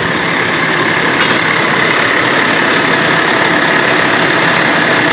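Fire truck's diesel engine running steadily, heard close up with the cab tilted forward and the engine exposed.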